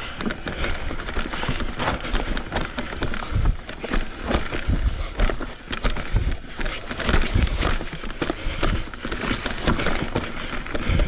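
Commencal full-suspension mountain bike clattering over rough trail: tyres on dirt and rock, with frequent irregular rattling knocks and low thumps as it takes the bumps.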